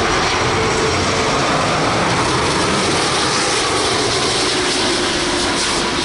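Airbus A330-200 airliner's jet engines running loud and steady as it comes in to land close by, with a faint engine tone slowly falling in pitch.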